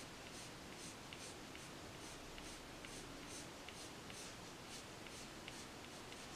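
Prismacolor coloured pencil scratching on paper in short, quick flicking strokes, about two to three a second, faint.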